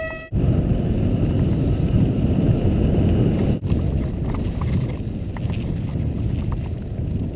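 Mountain bike descending a wet dirt trail: a steady rumble of tyres and wind on the microphone, with scattered clicks and rattles from the bike. The rumble breaks off briefly a little past the middle.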